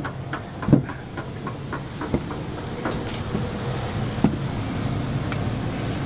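Footsteps and knocks climbing the RV's carpeted entry steps: a few sharp knocks, the loudest about a second in, over a steady low hum.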